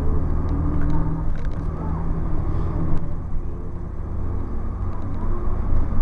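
Cummins ISC inline-six diesel of a Blue Bird CS transit bus running under way, heard from inside the bus as a steady low drone. A few light clicks and rattles sound over it.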